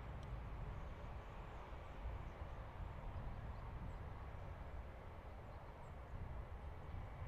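Distant jet airliner at takeoff power, heard as a faint, steady rumble as it rolls and lifts off, with wind buffeting the microphone and a few faint bird chirps.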